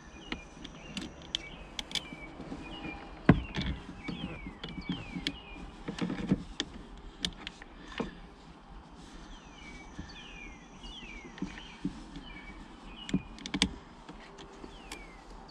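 Metal battery cable terminals clicking and knocking as they are worked onto the posts of a boat battery, in scattered sharp clicks with a louder knock a few seconds in and another near the end. Short falling whistles repeat in the background.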